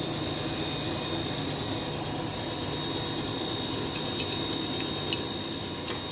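Steady mechanical hum with a few light clicks about four and five seconds in.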